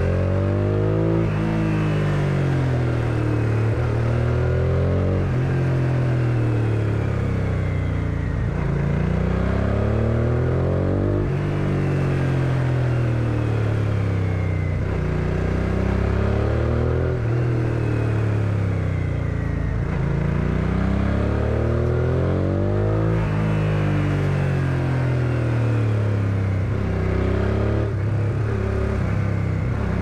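1999 Suzuki SV650S's 645 cc V-twin engine heard from the rider's seat, revving up and dropping back again and again as the bike accelerates, changes gear and slows for a string of bends.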